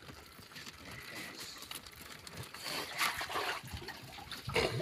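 Water trickling and splashing as hands work in a wet plastic-mesh lobster cage, with louder splashes about three seconds in and again near the end.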